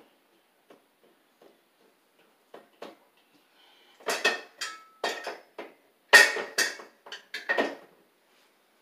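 Metal shelf bracket clinking and clattering against a slotted metal wall standard as it is worked into the standard's slots: a few light ticks, then a run of sharp metallic clatters about halfway in, the loudest just past the middle.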